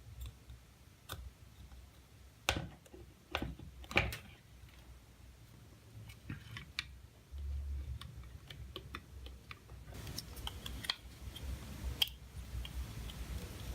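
Scattered sharp clicks and light knocks over a low rumble, loudest about two and a half to four seconds in, with a quicker run of small clicks near the end.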